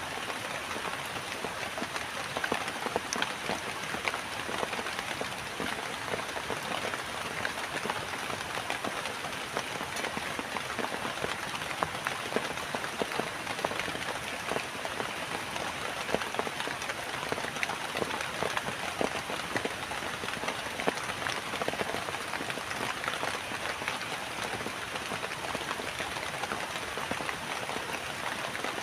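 Rain falling steadily, with many separate drop hits striking a surface over a continuous wash.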